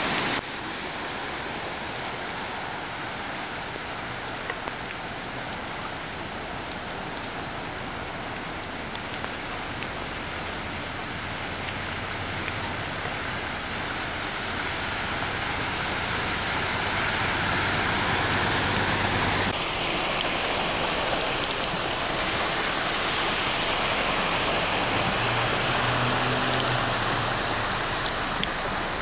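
Steady rain falling, and the rushing splash of vehicles driving through flood water over the road. The splashing swells and then cuts off suddenly about two-thirds through. Near the end a passing pickup truck's engine hums briefly under the water noise.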